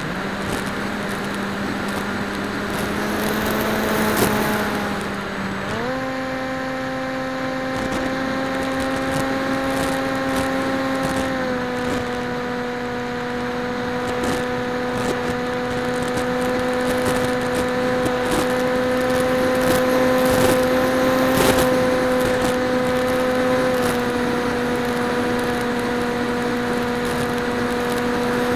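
Electric motor and propeller of a PopWing flying wing in flight, heard from its onboard camera: a steady whine that steps up in pitch about six seconds in as the throttle opens, then eases down slightly twice later on, with rushing air noise.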